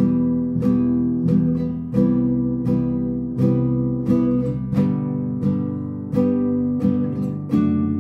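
Alhambra nylon-string classical guitar strummed in a steady rhythm, working through the Em, Cmaj7, G, D chord progression with the chord changing about every two seconds.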